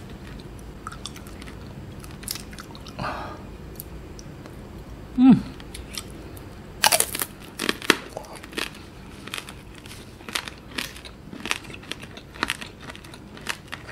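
Close-up crunching and chewing of tanghulu green grapes, their hard candied sugar shell cracking between the teeth in many sharp crunches. A loud crunch comes about seven seconds in, followed by steady repeated crunching. About five seconds in there is a short falling hum from the eater's voice.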